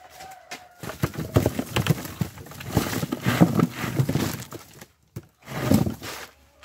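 Freshly picked cucumbers poured from a plastic bucket into a plastic-lined cardboard crate: a long rush of knocking and thudding as they tumble out, then a second shorter rush near the end as the last ones are tipped out.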